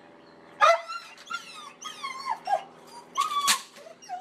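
A dog whining and yowling in a string of about six short calls that bend up and down in pitch. They start about half a second in, and the loudest comes near the end.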